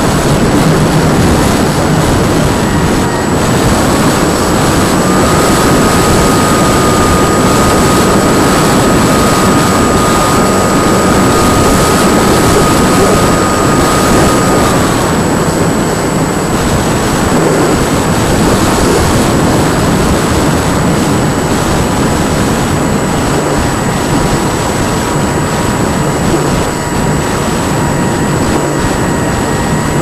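RC model airplane's motor and propeller running in flight, heard from a camera on the plane: a steady whining tone under heavy wind noise on the microphone. The whine rises in pitch a few seconds in, holds, and drops back about halfway through as the throttle changes.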